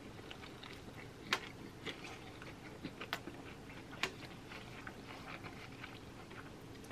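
Quiet chewing and wet mouth sounds of people eating fried chicken wings and licking their fingers, with a few short sharp smacks, the loudest about one and a half, three and four seconds in.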